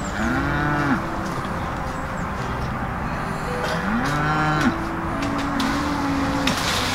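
Cattle mooing: two short calls that rise and fall in pitch, the first at the start and the second about four seconds in, then a longer, flatter moo.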